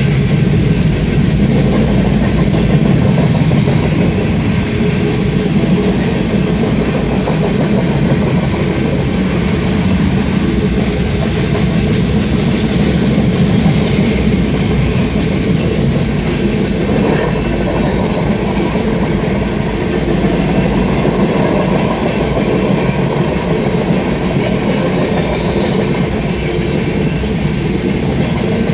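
Freight cars rolling past at a steady speed: a continuous rumble and clatter of steel wheels on the rails.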